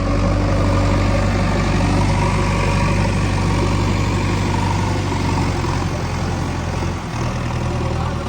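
Diesel engine of a JCB 3DX backhoe loader running steadily with a deep, even hum while it loads sand; the engine note dips and shifts about seven seconds in.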